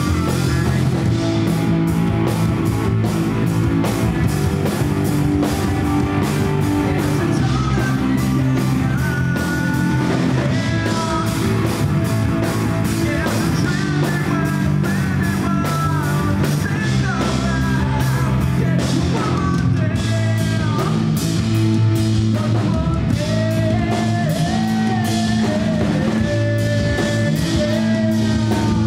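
Rock band playing live: a male singer over electric guitars, bass guitar and drum kit. A wavering melody line comes in about nine seconds in.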